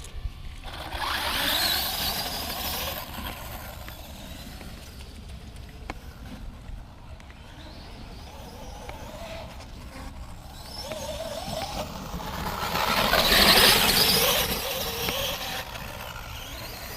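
Traxxas X-Maxx electric RC monster truck driving by twice, its motor whining up and down in pitch as it speeds up and slows. The first pass is about a second in; the second, louder one peaks around thirteen to fourteen seconds in.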